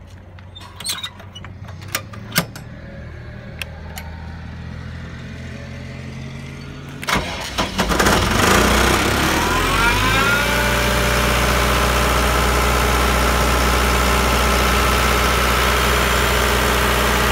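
The Deutz diesel engine of a 2015 Atlas Copco XAS 375 mobile air compressor runs up. A few sharp clicks sound over a low hum, then about seven seconds in a sudden loud surge rises in pitch over about three seconds and settles into a steady, loud run.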